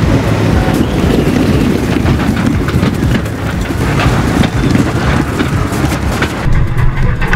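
A farm tractor driving on a flooded test track, its engine running and its tyres throwing up water spray, heard as a steady rush of noise.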